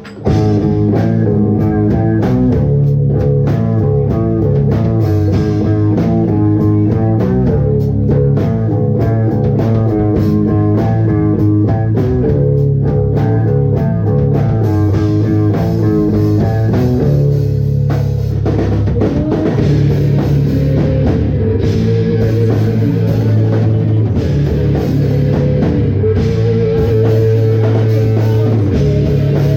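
Live rock band playing an instrumental passage on electric guitar and drum kit, loud and steady. The riff changes about two-thirds of the way through into longer held notes.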